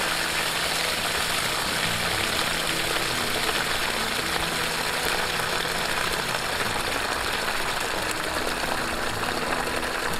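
Water gushing steadily out of the open end of a PVC pipe onto the ground, drawn up from a deep well through a no-electricity pump setup.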